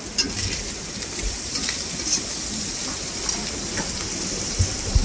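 Small anchovies (teri) frying in hot oil in a wok, sizzling steadily, with a few light clicks scattered through. The anchovies are still wet from washing.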